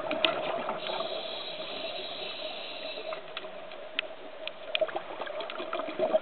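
Muffled underwater noise picked up on a scuba dive: a steady watery hum with scattered sharp clicks, and a high hiss from about one to three seconds in.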